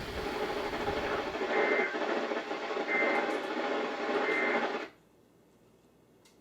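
NOAA Weather Radio receiver playing the Emergency Alert System end-of-message code over radio hiss: three short bursts of buzzing data tones about 1.3 seconds apart, marking the end of the alert. The hiss cuts off suddenly about five seconds in.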